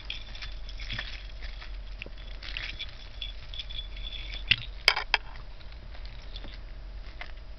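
Strands of plastic faux pearl beads clicking and rattling against each other as the necklace is handled, with three sharp clacks, the loudest, about five seconds in.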